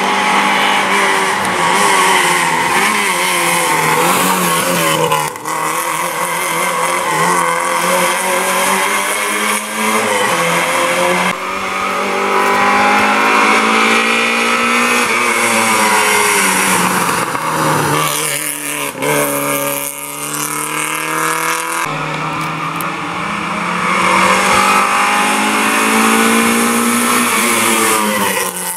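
Rally car engine revving hard, its pitch climbing and dropping again and again as the car drives the stage, with a few abrupt changes in the sound.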